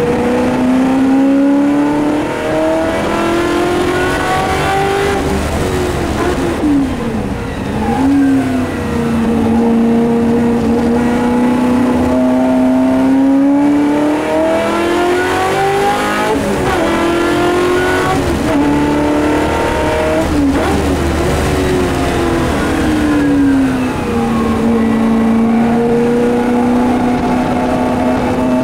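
Historic race car's engine heard from inside the cockpit under hard racing, its revs climbing and holding high on the straights. Several times the pitch drops sharply with quick blips, as on downshifts braking into corners.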